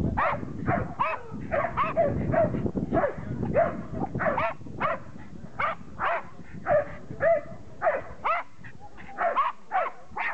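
Groenendael Belgian shepherd dog barking repeatedly while herding sheep, a steady run of short barks about two a second.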